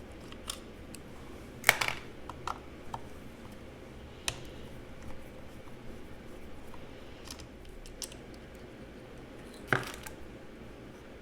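Scattered small clicks and light clatter of hand work on a brushed motor as its carbon brushes, springs and spade connectors are removed, with two louder sharp knocks about two seconds in and near the end.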